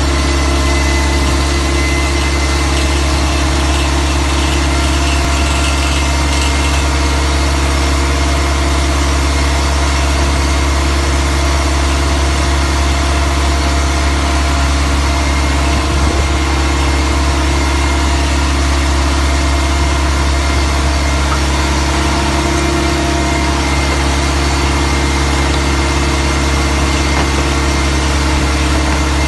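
Diamond core drill rig's power unit running steadily: a loud, constant low drone with several steady tones above it.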